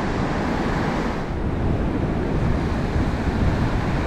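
Ocean surf washing and breaking in the shallows, a steady rush of water, with wind rumbling on the microphone.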